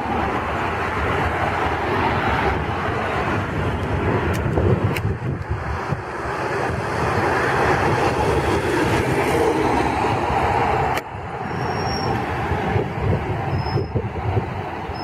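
Jet airliner engines roaring steadily as aircraft take off and climb out. The sound cuts abruptly about two-thirds of the way through, then resumes slightly quieter.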